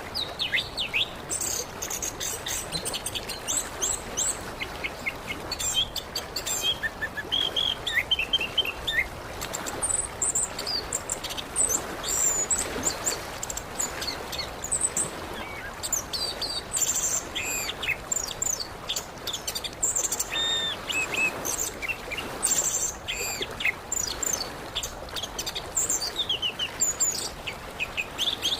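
Orange-headed thrush (anis kembang) singing: a continuous, varied stream of quick high chirps and short whistled phrases.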